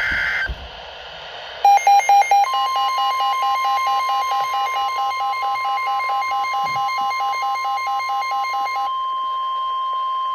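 A weather radio alert: the receiver's electronic beeper starts about two seconds in, pulsing about four times a second, and half a second later the long, steady NOAA Weather Radio warning alarm tone (1050 Hz) joins it. The beeping stops near the end while the single steady warning tone carries on, the signal that a weather warning broadcast is about to follow.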